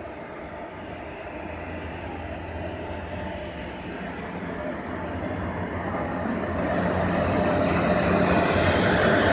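Electric locomotive hauling a train of empty container flat wagons, passing close by. A steady low hum and the noise of wheels rolling on rail grow steadily louder as the locomotive goes by and the wagons follow.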